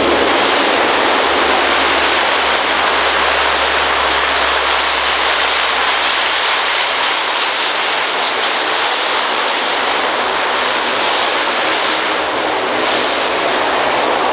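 Lockheed C-130 Hercules' four Allison T56 turboprop engines and propellers running loud and steady as the aircraft rolls down the runway after landing.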